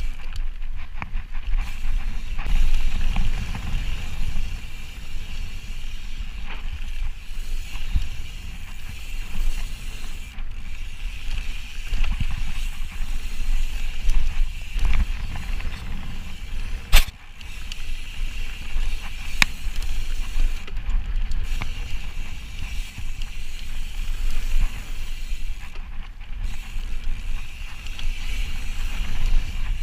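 Ibis Ripley mountain bike ridden fast down a dirt trail: a steady low rumble from the ride, with rattling and clicking from the bike. A sharp knock comes about halfway through and another a couple of seconds later.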